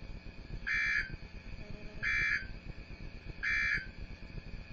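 Emergency Alert System end-of-message data bursts: three short, identical buzzy digital squawks about a second and a half apart, signalling that the tornado warning broadcast is over.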